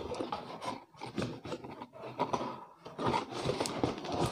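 Cardboard box flaps being pulled open by hand, an irregular rubbing and scraping of cardboard on cardboard that gets louder near the end.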